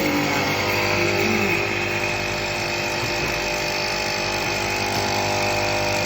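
Industrial electric coffee grinder running steadily, grinding freshly roasted coffee beans.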